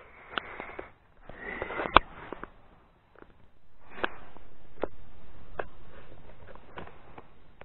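Sniffing and breathing noises close to the microphone, with scattered small clicks and knocks, then a longer hiss that starts about three and a half seconds in and slowly fades.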